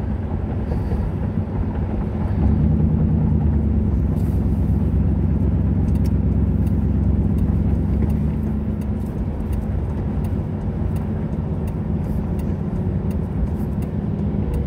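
Steady engine and road noise inside a moving car's cabin: a continuous low hum and rumble while driving at a steady speed.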